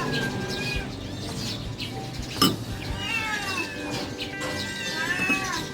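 Several pet cats meowing again and again, begging for food, with one sharp click about two and a half seconds in.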